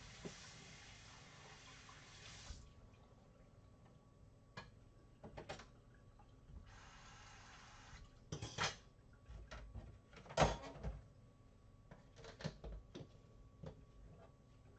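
Kitchen tap running, shutting off, then running again for about a second and a half, between sharp knocks and clunks of kitchenware handled at the sink; the loudest clunk comes about ten seconds in.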